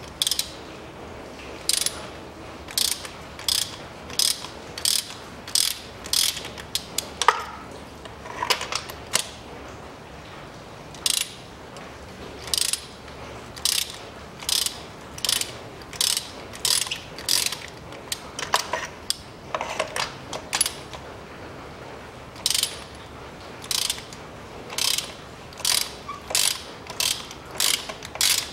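Ratchet wrench clicking in short bursts about once a second as its handle is swung back and forth, unscrewing spark plugs with a plug socket, with a few brief pauses and an occasional short squeak.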